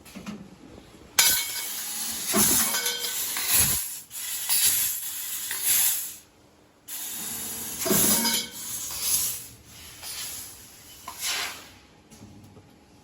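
Fiber laser tube-cutting head at work, the jet of assist gas hissing with a crackle and clinks. The hiss starts abruptly about a second in, breaks off for about a second around six seconds, then resumes and dies away near the end.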